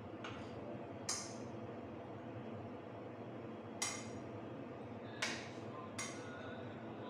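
A serving spoon clinking against china plates: five short sharp clinks at uneven intervals, the first faint, some leaving a brief ring, over a steady low hum.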